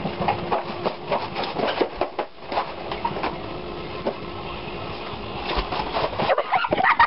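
Sped-up household noise: a fast, irregular jumble of knocks, taps and rustling.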